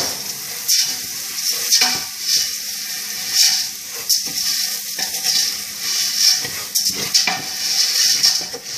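Mung beans, onions, garlic and spices sizzling as they are toasted dry in a hot stainless steel pot before the water goes in, stirred with a wooden spoon, with a swish at each stroke about once or twice a second.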